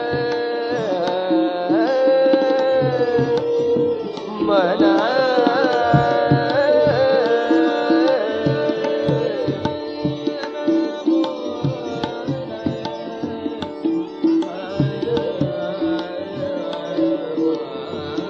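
Hindustani classical music in raga Gavati: tabla keeps a steady beat under a melodic line that slides between notes, over a steady drone. The melody thins out after about ten seconds, leaving mostly tabla and drone.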